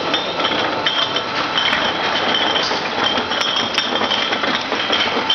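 Glass bottle washing machine running: a steady mechanical din with frequent clinks of glass bottles knocking against each other and the machine's metal guides.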